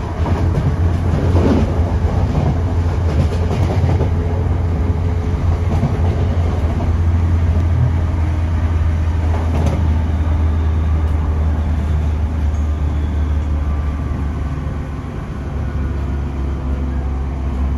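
Moving passenger train heard from inside the carriage: a steady low rumble of wheels on rails, with a few sharp clicks from the track.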